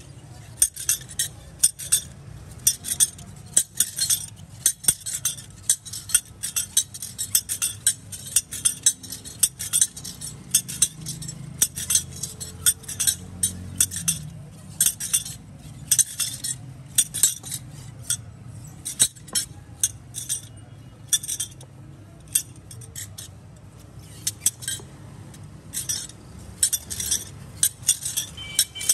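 A steel cleaver-knife shaving the hard rind off sugarcane stalks: quick, repeated scraping strokes of the blade, several a second, with a few short pauses, over a steady low hum.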